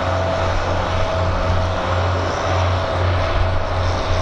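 Aircraft engines running: a loud, steady rush with a steady mid-pitched tone and a low hum that pulses a few times a second.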